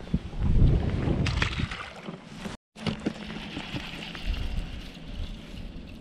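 Wind buffeting the microphone and handling noise on the boat deck, cut off by a brief dropout about two and a half seconds in. After it, a baitcasting reel being cranked, with a soft whir and a few light clicks.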